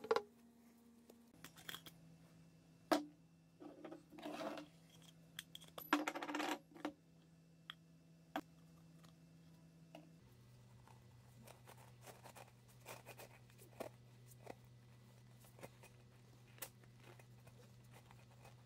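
Scattered metallic clinks, scrapes and knocks as an opened car oil filter is handled: its steel canister and pleated paper element being pulled apart by gloved hands, with a few sharper knocks in the first half.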